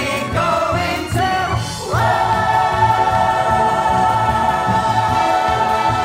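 Musical theatre singers with a pit orchestra. About two seconds in, the voices slide up into one long held high note over the band.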